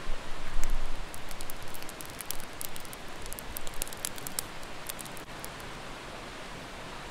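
Wood campfire crackling and popping in a steel fire ring: a run of sharp snaps over the first five seconds, over a steady rushing noise, with a low rumble about half a second in.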